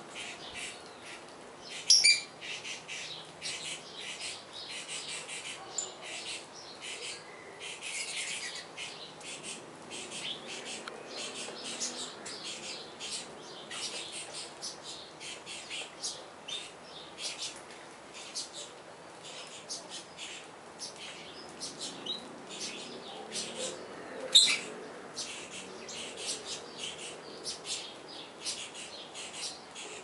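A flock of saffron finches chirping continuously as they feed, a dense stream of short, high calls. Two much louder, sharp sounds stand out, one about two seconds in and one about three-quarters of the way through.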